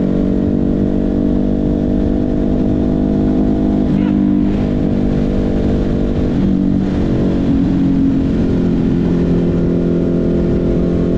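Ducati Hypermotard 950's L-twin engine running at a steady cruise, with wind rush over the rider. The engine note shifts a little about four seconds in and again just past halfway.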